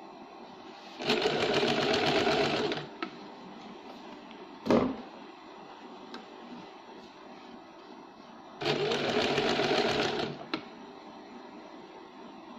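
Small sewing machine stitching fabric in two short runs of about two seconds each, with a fast, even needle rhythm; the first starts about a second in, the second near the end. Between the runs comes a single sharp knock, the loudest sound.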